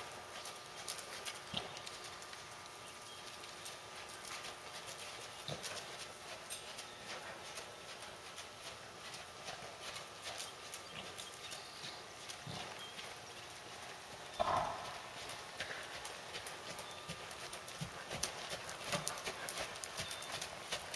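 Hoofbeats of a ridden Canadian Warmblood horse moving around an indoor arena on dirt footing, a run of soft irregular clip-clops. About two-thirds of the way through there is one brief, louder sound.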